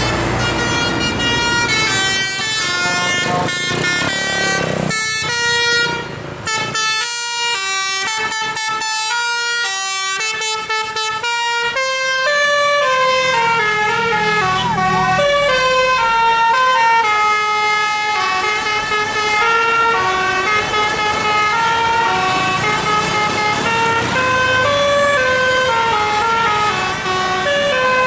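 Bus 'telolet' horn, a multi-tone musical air horn of the basuri type, playing a melody of held notes that step up and down in pitch, with bus engine rumble underneath at times.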